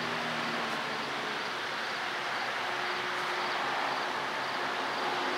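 MLW RS-18 diesel locomotive approaching head-on, its engine running under a steady rushing noise that grows a little louder toward the end.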